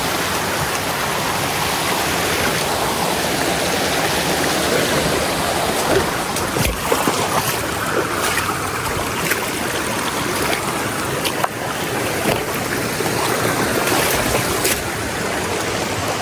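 Steady rushing and splashing of water from a small waterfall, with a few short knocks in the middle.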